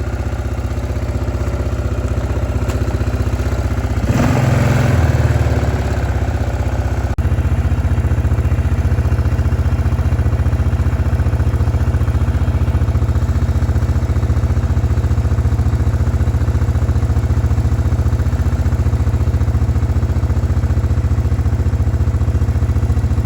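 A small engine running steadily with a fast, even low throb. It gets louder and rougher for a few seconds about four seconds in, then settles back to a steady run.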